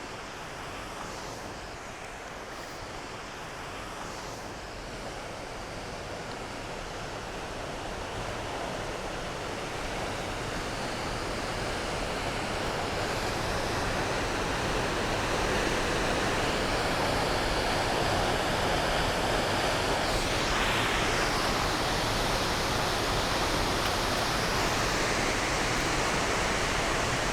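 Steady roar of South Falls, a tall waterfall: an even rushing hiss of falling water that grows gradually louder.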